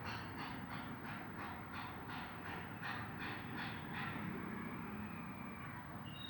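A bird calling in a rapid series of short harsh notes, about three to four a second, that stops about four seconds in; a short high chirp follows near the end.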